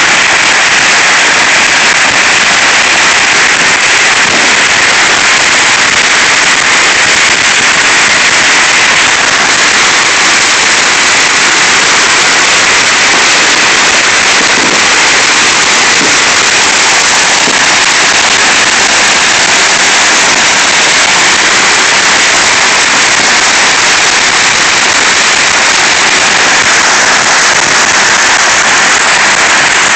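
Firecrackers and fountain fireworks going off together in a loud, unbroken crackle, so dense that no single bangs stand out.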